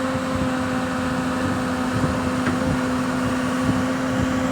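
Volvo excavator's diesel engine running steadily with a constant drone, as the machine loads onto a low-bed truck.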